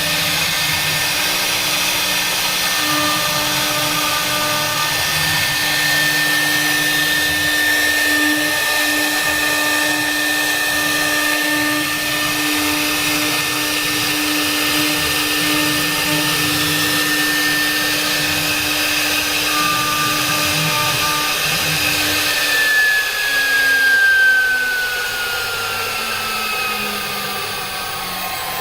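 CNC router spindle running steadily with a high whine and cutting noise while carving. About 23 seconds in, the whine starts gliding steadily down in pitch, the sound of the spindle winding down.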